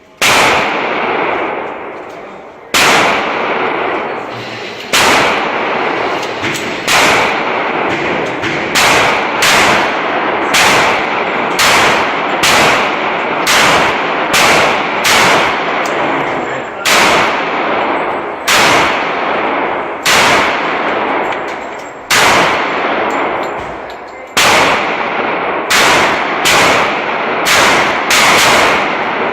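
Pistol shots fired one at a time, about two dozen in all, each with a long echoing tail. Spaced a couple of seconds apart at first, they quicken to a steady string of one to two shots a second, slow again in the middle, then pick up pace near the end.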